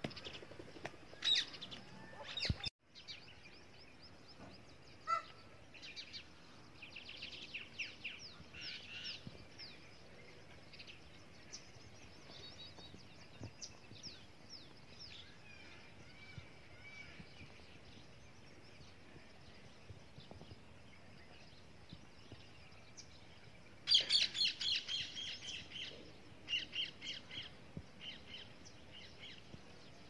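Green parakeets calling in chirps and short squawks, coming in scattered bursts, with a loud run of rapid repeated calls near the end.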